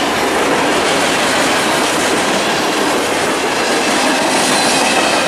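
Freight train cars (tank cars and covered hoppers) rolling past close by: a loud, steady rush of steel wheels on the rails.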